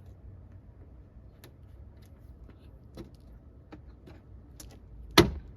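Small clicks and taps of plastic push-pin retainers being handled and fitted into a plastic trim panel, then one loud thump about five seconds in as a pin is struck with the hand to seat it.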